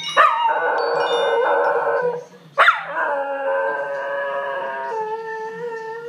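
An 11-month-old miniature schnauzer howling along to a phone ringtone. Two long howls, each starting high and sliding down in pitch; the second begins after a short break about halfway through and holds steady, sinking slightly, to the end.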